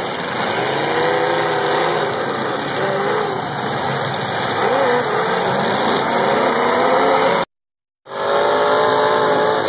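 Several demolition derby cars' engines revving hard, their pitch rising and falling as they accelerate and ram. The sound cuts out for about half a second near the end, then engines run on more steadily.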